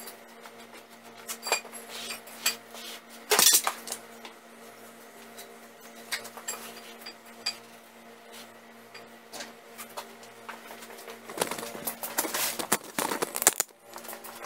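Scattered metallic clinks and knocks from a cast-iron lathe bed being handled on steel bars laid across an electrolysis tank, the loudest knock about three and a half seconds in and a busier spell of clattering near the end. A faint steady hum runs underneath.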